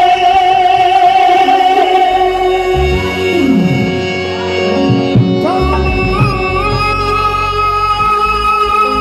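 Live Indo-Caribbean baithak music: a hand-played dhol drum keeps the rhythm under a man's singing voice, harmonium and keyboard, with a steel dhantal rod adding metal clinks.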